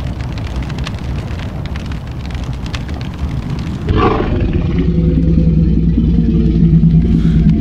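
Film sound design from an animated short: a crackling rumble, then about four seconds in a loud, steady low drone swells in and holds.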